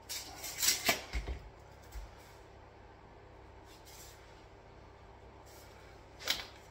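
Clatter and rustle of a tape measure and pencil being handled against a wall, loudest in the first second and a half, with a single sharp knock near the end.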